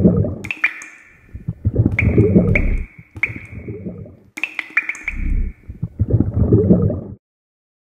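Liquid splash and drip sound effects: a run of wet splashes with sharp, ringing drip plinks among them. The sound stops abruptly about seven seconds in.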